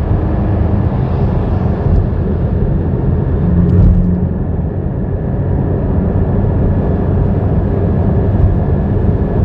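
Interior of a Porsche 718 Cayman at expressway speed: the engine runs steadily in fifth gear at around 3,500 rpm, under tyre and wind noise, and swells briefly about four seconds in.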